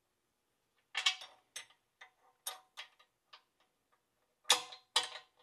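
Light metallic clicks and clinks of a flanged bearing being slid along a steel compressor crankshaft and seated against the housing. There are several small ticks, then two louder clanks near the end.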